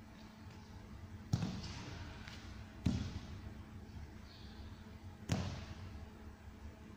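Three sharp thuds, the third coming after a longer gap, each with a short echo in a large hall: a person coming down onto a padded floor mat, hands gripping training knives, as he drops from standing into a plank and lowers himself to the floor.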